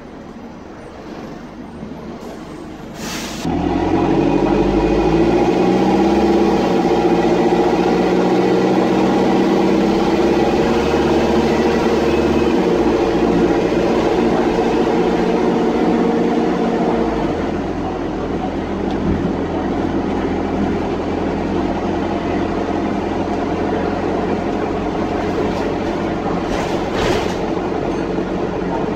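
Dennis Dart SLF bus engine heard from inside the saloon, loud because of a blown exhaust. After a quieter few seconds and a sharp clunk, the engine comes on hard with a loud, droning blare that rises slightly. About two-thirds of the way through it eases off to a lower, steady running note.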